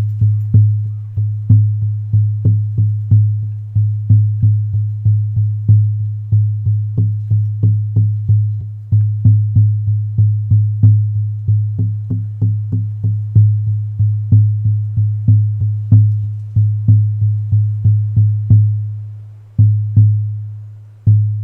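Hair-on horse-skin shamanic frame drum on an ash frame, beaten steadily with a soft beater at about three strokes a second, each stroke a deep note. The hair on the skin mutes the sound so it rings only briefly. The beating breaks off near the end with two last, spaced strokes.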